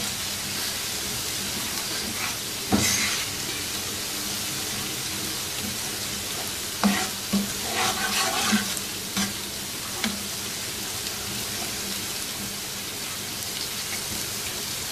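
Ginger-garlic paste sizzling in hot oil in a non-stick frying pan, with a steady hiss. A plastic spoon stirring it scrapes and knocks against the pan several times, mostly between about three and ten seconds in.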